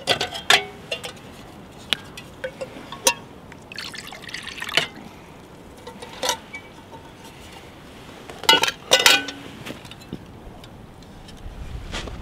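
Metal camp cookware clinking and clattering as a soot-blackened pot is lifted off a Trangia alcohol stove and handled, with liquid sounds from the water in it. The loudest clatter, with a brief metallic ring, comes about two-thirds of the way through.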